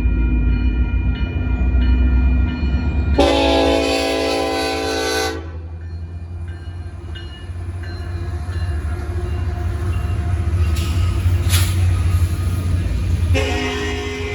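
Union Pacific freight locomotives rumbling through a grade crossing, with two horn blasts of about two seconds each, the first about three seconds in and the second near the end. A crossing bell rings faintly under the rumble early on.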